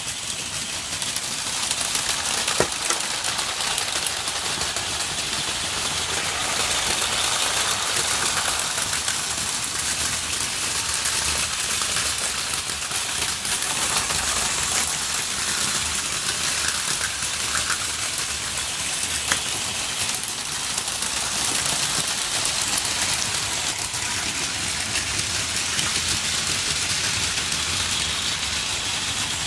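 Plarail Advance toy trains running on plastic track: a steady high whirring of their small electric motors with rattling wheels, and an occasional sharp click.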